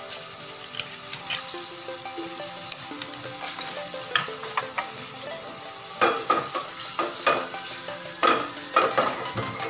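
Butter and oil sizzling in a stainless steel frying pan over a high gas flame, a steady frying hiss. From about six seconds in, a run of sharp clicks and knocks as the pan is shaken and swirled on the burner.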